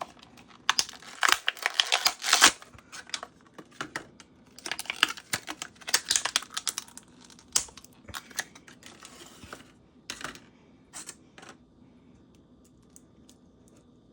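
Toy packaging being unwrapped by hand: two spells of wrapper crinkling and rustling, then scattered clicks and crackles that die down over the last few seconds.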